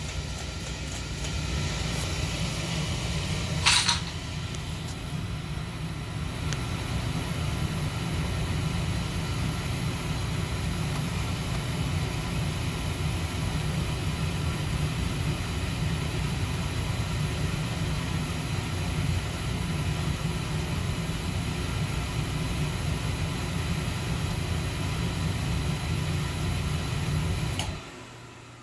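A running appliance gives a steady, heavy low hum that cuts off suddenly near the end as the machine switches off. There is a brief sharp click about four seconds in.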